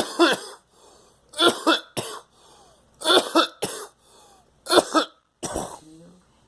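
A person coughing hard in a repeated fit: about half a dozen harsh coughs, some in quick pairs, with gasping breaths drawn in between. The fit comes from coffee swallowed the wrong way.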